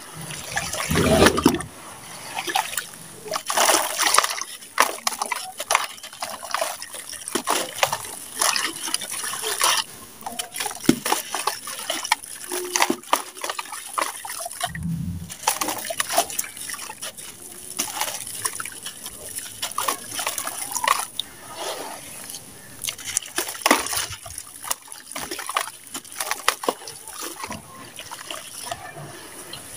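Hands kneading and squeezing thick wet grey mud in a plastic tub: irregular wet squelches, sloshes and splashes, with a few heavier plops about a second in and around the middle as handfuls drop back in.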